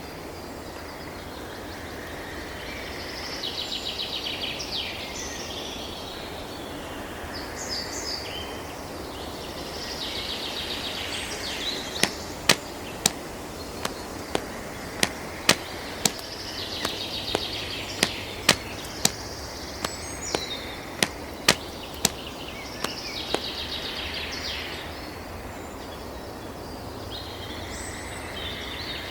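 Birds calling in short, high chattering bursts every few seconds over a steady background hiss, with a run of about eighteen sharp clicks, one or two a second, near the middle.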